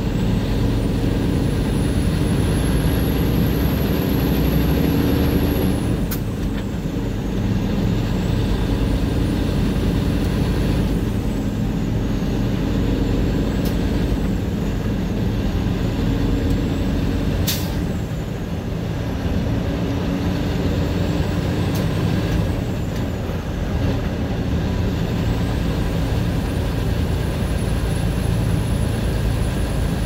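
Heavy truck's engine running steadily as it drives, with road noise and one sharp click a little past halfway.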